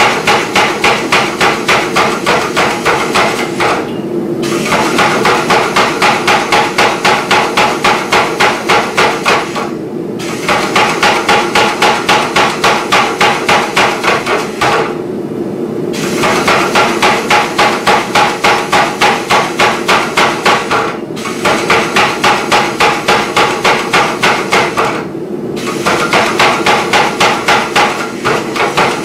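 Power hammer rapidly striking a red-hot steel bar, several blows a second, in runs of a few seconds with brief pauses between them. A steady hum runs beneath the blows. This is stepping down the bar to form the rough shoulder and shank of a hardy tool.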